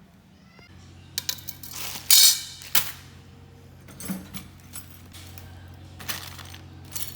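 Metal parts and tools clinking and clattering in irregular knocks, the loudest clatter about two seconds in, over a steady low hum.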